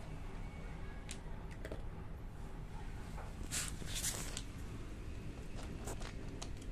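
Cat crunching dry kibble from a plastic tub: scattered short, crisp crunches, a cluster of them about halfway through.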